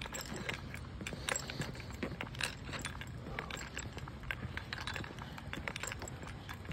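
Footsteps on a paved asphalt path with many irregular light clicks and rattles, over a steady low rumble of movement.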